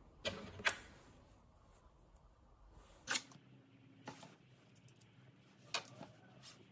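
Light, sharp clicks and taps of small hexacopter frame parts being handled: brass spring-loaded fittings and carbon-fibre plates knocking together, about half a dozen scattered clicks.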